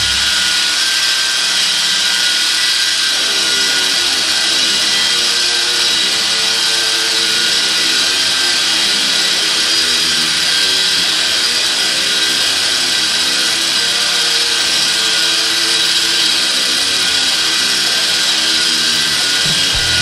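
Eastwood Contour SCT drum sander running with its Scotch-Brite drum against an aluminum plate: a steady grinding hiss with a constant whine from the motor. Background music plays faintly underneath.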